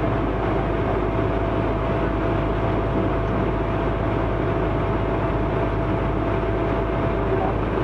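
Magirus aerial ladder fire truck's diesel engine running steadily with a deep rumble, with a thin steady whine over it that stops near the end.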